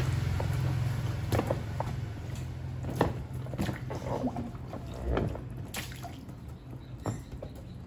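Water splashing and dripping in small, scattered bursts as a baby monkey is bathed, over a low, steady hum.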